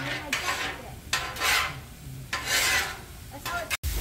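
Metal spatulas scraping across a steel flat-top griddle while turning diced chicken, in a few rasping strokes about a second apart.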